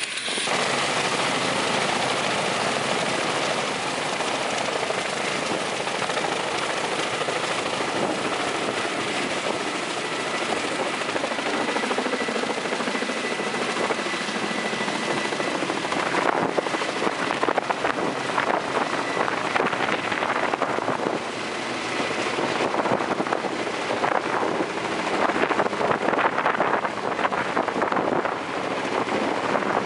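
Kamov coaxial-rotor helicopter running, its twin turbine engines and stacked rotors lifting it off the pad and climbing with a long line slung beneath. About halfway through, the steady rush turns choppy and gusty.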